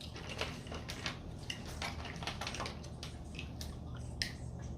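Close-miked eating sounds: wet chewing and lip smacking with scattered small clicks and crackles, as from picking at snow crab legs.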